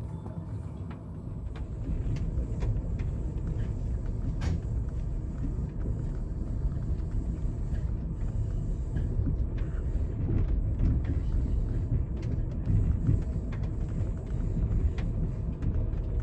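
Amtrak California Zephyr passenger train rolling along the track: a steady low rumble with scattered clicks and knocks from the wheels and car, growing louder about a second and a half in.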